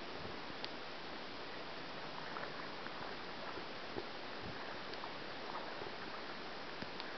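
Steady wash of a wide river's flowing water, with a few faint clicks and brief faint chirps over it.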